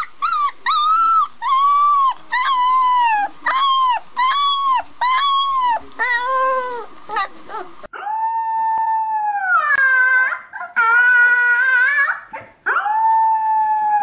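A golden retriever puppy giving a quick string of short, high-pitched whining howls, each one rising and then falling, about one and a half a second. About eight seconds in, a grey-and-white husky-type puppy takes over with long, drawn-out howls, each held and then sinking at the end.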